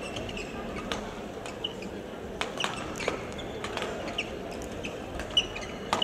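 Badminton doubles rally: sharp cracks of rackets striking the shuttlecock at uneven intervals, the loudest near the end, with short squeaks of players' shoes on the court floor.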